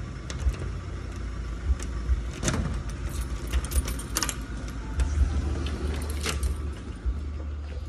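A bunch of keys jangling and clicking against the lock of an aluminium sliding door as it is unlocked, with a steady low rumble underneath.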